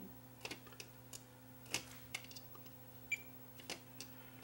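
Faint light clicks and taps as metal multimeter probe tips touch the parts on a small circuit board, checking its diodes for a short, over a low steady hum. A brief high ping sounds once, about three seconds in.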